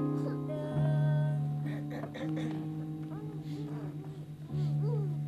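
Instrumental music played on a keyboard: long, low held notes that change every second or two, with short high tones bending up and down over them from about three seconds in.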